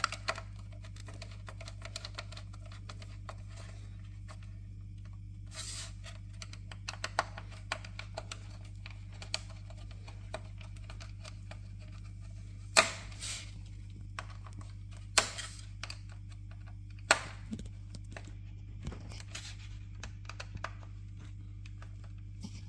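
Scattered small clicks and a few sharp knocks from hand work on the plastic display housing as it is screwed together, over a steady low hum.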